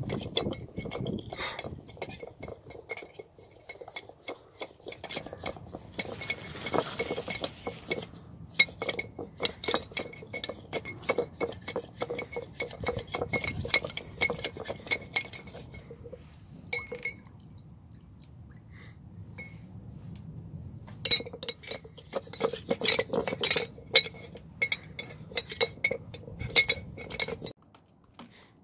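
A metal part being rattled and swirled inside a glass jar of diesel to clean it, clinking rapidly against the glass with a ringing tone. There is a quieter spell a little past halfway, then more clinking that stops abruptly near the end.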